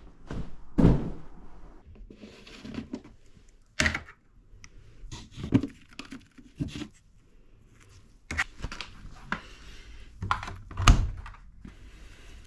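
Laundry being gathered and loaded: a fabric pop-up hamper and a plastic basket handled, with rustling clothes and a string of irregular knocks and thuds, the loudest about a second in and near the end. A front-loading washing machine's door is opened near the end.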